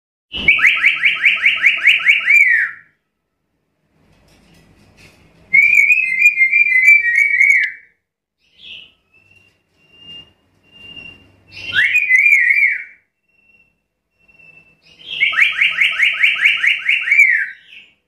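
Black-capped lory calling: four loud bursts of rapid repeated notes, about five a second in the first and last, with a few soft short notes between the bursts.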